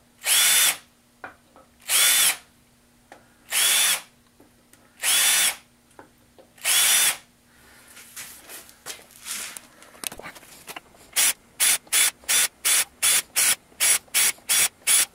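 Cordless drill spinning a deburring bit in short bursts, one drilled hole in a 6061 aluminium plate at a time, each burst a steady motor whine of about half a second. After a short lull with faint scraping, the bursts come quickly one after another, about three a second, in sped-up footage.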